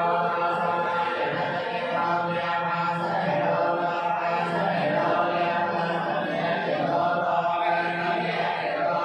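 Buddhist monks chanting together in unison, a continuous chant on long held tones.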